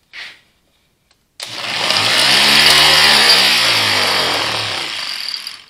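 Rebuilt Allis-Chalmers WD45 tractor starter motor run on the bench from a battery charger with the polarity reversed. After a brief crackle, it starts suddenly about a second and a half in and runs for about four seconds, its pitch rising and then falling, before it stops. It turns the same direction as with normal polarity, as a wound-field starter does.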